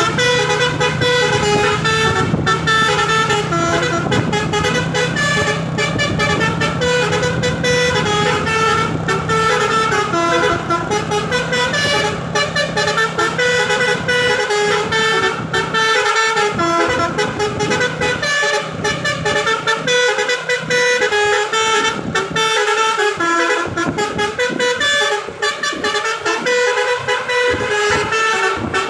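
Telolet Basuri V3 multi-tone horn on a Quester truck playing a melody of stepped notes. A steady low engine hum sits underneath through the first half.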